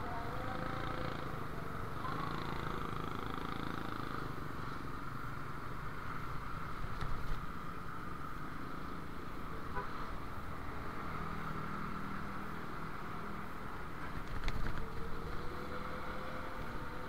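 Steady motorcycle engine and road noise while riding in slow, dense city traffic, with other motorbikes and vehicles close around. A brief sharp click comes near the end.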